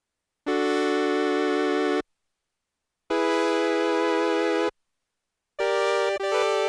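Technics SX-K200 keyboard playing its brass preset: three held notes or chords of about a second and a half each, with silence between them. The third breaks into a few quicker notes near the end.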